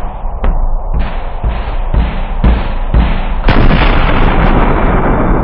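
Heavy metal drum kit hammering out hard, evenly spaced hits about twice a second with a deep kick underneath. About three and a half seconds in, the kit's explosion comes in as a loud blast whose rumble carries on.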